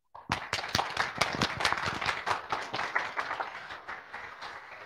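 Audience applauding: many hands clapping together, starting suddenly, fullest in the first few seconds, then slowly thinning out.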